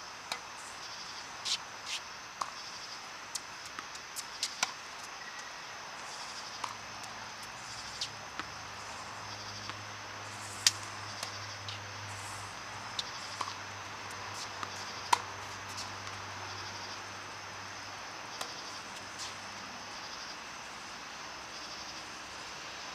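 Tennis balls being hit and bouncing, heard as scattered sharp pops at irregular intervals, the two loudest about 11 and 15 seconds in. Insects chirp steadily in the background.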